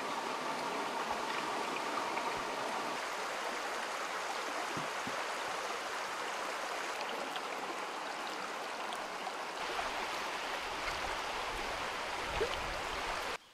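Shallow stream running steadily over rocks and pebbles, a continuous rushing and trickling of water.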